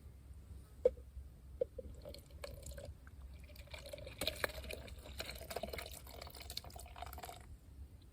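Thick curry being poured from a cooking pot into a cup or bowl, splashing and trickling for several seconds, after two sharp metal clinks about a second in.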